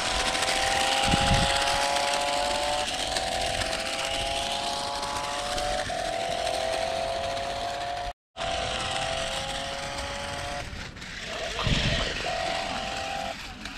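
Toy remote-control stunt car driving over gravelly dirt: its small electric motors and gears whine steadily in a slowly rising pitch that drops back every few seconds, over the rustle of its tyres on the ground. Two low thumps come about a second in and near the end, and the sound cuts out briefly a little past halfway.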